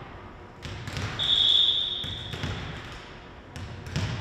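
Referee's whistle blown once, a steady high tone lasting about a second, signalling the server to serve. A volleyball is bounced on the hardwood gym floor a few times before the serve.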